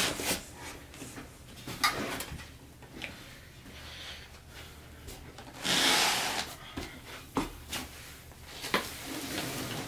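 Handling noise as a desk is lifted out of its cardboard box: scattered knocks and rubs, with a louder scraping rustle about six seconds in.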